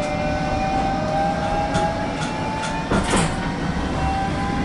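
Bombardier Flexity 2 tram running, heard from inside the car: a motor whine that climbs slowly in pitch as the tram picks up speed, over steady running noise, with one sharp knock about three seconds in.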